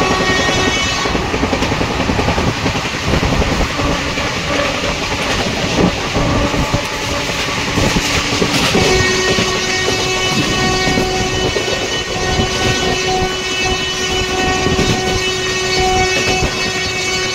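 Two trains running at speed on parallel tracks, heard from aboard one of them: a steady rumble and clatter of wheels on rails, with a goods train of hopper wagons running close alongside. About halfway in, a steady horn-like tone joins and holds.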